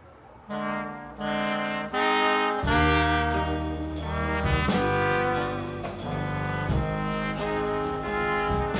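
Background music with brass instruments: after a short quiet start, horn chords come in over a bass line.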